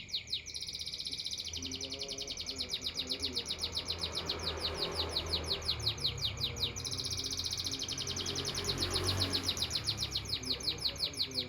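Songbird singing a long, fast trill of rapidly repeated high notes. It breaks off briefly about six and a half seconds in, then resumes until it stops at the end. A steady high whine runs underneath.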